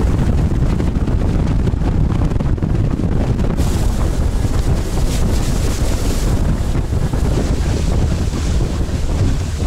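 Strong wind buffeting the microphone over the rush and splash of water past a small motorboat running fast on open water. A brighter hiss of spray joins in about three and a half seconds in.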